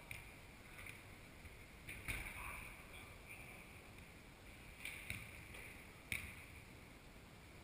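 A handful of sharp knocks scattered over a few seconds, from a football being kicked and striking the pitch boards, over the faint background noise of a large indoor sports hall.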